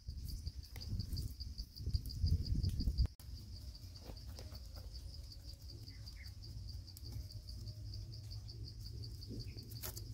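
An insect chirping steadily at a high pitch in pulses, about four a second. A low rumble runs under it for the first three seconds and stops abruptly.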